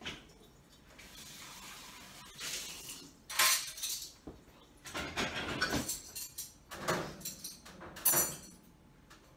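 Dishes, glasses and cutlery clinking and clattering in several separate bursts as they are moved from the sink into the dishwasher.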